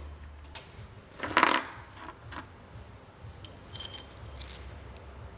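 Small metal parts clinking against each other and a hard surface: a handful of separate sharp clinks, some with a brief high metallic ring.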